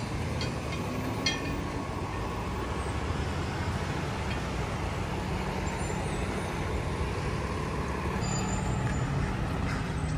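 Diesel tow-truck engine running steadily, with a few light clicks in the first couple of seconds.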